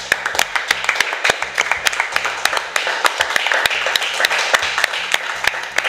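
A small group of people at a table applauding: dense, irregular hand claps with no let-up.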